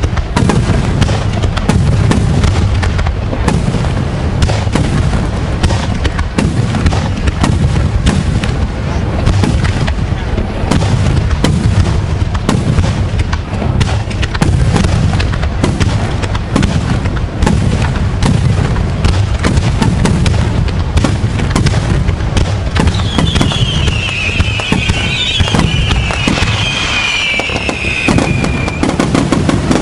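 Aerial fireworks bursting in rapid, continuous succession: dense booms and sharp cracks over a steady low rumble. About three quarters of the way through, a high wavering whistle falls in pitch over several seconds.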